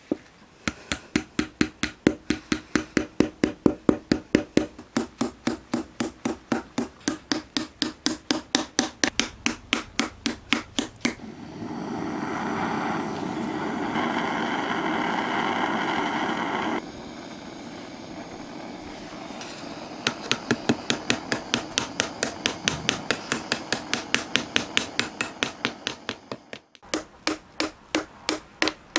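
A hammer tapping the spout of a stainless steel lid into shape, quick sharp taps about four a second. Near the middle the taps stop for a blowtorch hissing for about five seconds while it heats the spout red-hot. The tapping then starts again, with a brief break near the end.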